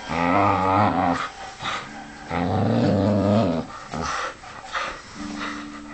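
A dog growling in play as it tugs and worries a jumper sleeve: two long growls, then shorter snarling bursts, and a steadier growl starting near the end.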